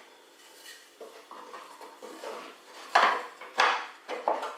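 Oak wedge and wooden clock case being handled, wood on wood: light scraping and tapping, then three sharper knocks in the last second and a half as the wedge is set into its slot.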